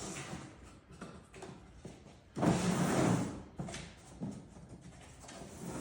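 Assembly pins being dropped into a CatCubby lid's panels and the pieces handled into place: scattered light knocks and clicks, with a louder scraping slide of about a second near the middle.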